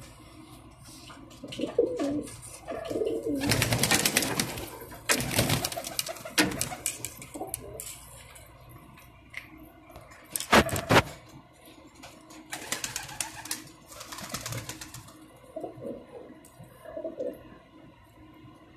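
A flock of domestic pigeons cooing, broken by several loud rushes of wing flapping, the sharpest a little past halfway.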